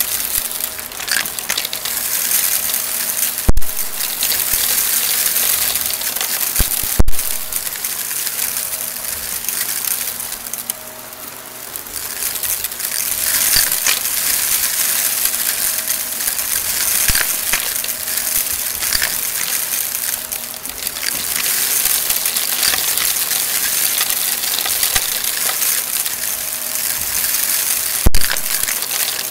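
Shark Navigator XL vacuum cleaner running over carpet and sucking up a mix of sand, glitter, confetti and small hard bits, a steady rushing hiss of debris rattling through it. Three sharp, loud clacks of hard pieces striking inside the vacuum come a few seconds in, about seven seconds in and near the end, and the noise drops briefly around ten seconds in.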